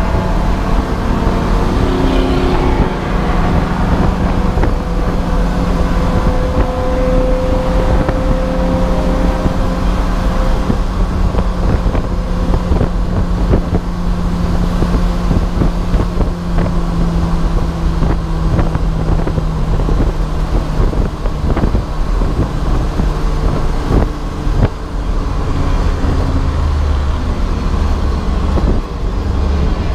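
Race car engine running under load at speed, heard from inside the car. Its note drifts slowly in pitch, over steady wind and road noise with constant small rattles.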